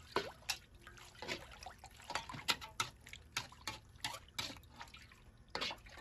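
Water ladled over oil-blanched shrimp in a stainless perforated strainer, splashing and dripping through into the wok as the oil is rinsed off, with irregular sharp clinks of the ladle against the metal.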